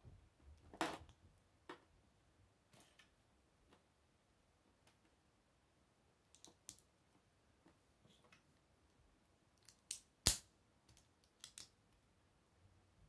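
Small Lego bricks handled and pressed together: scattered light plastic clicks, the sharpest about ten seconds in as a plate snaps onto the studs.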